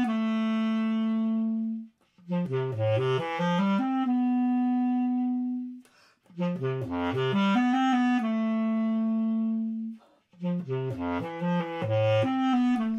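Solo basset horn playing short phrases of quick running notes that dip low and climb back, each settling on a long held note, with brief pauses between the phrases.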